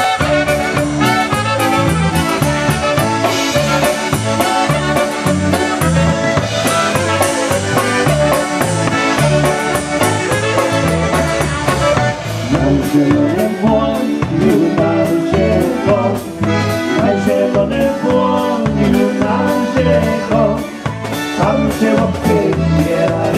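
Live polka band playing an instrumental passage with no singing: clarinet and trumpet lead over drum kit and bass with a steady beat. About halfway through, an accordion takes over the melody.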